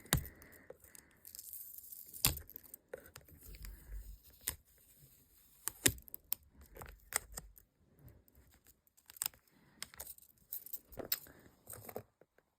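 Stickers being peeled off a sheet and handled: soft peeling and crinkling, broken by many scattered sharp clicks and taps.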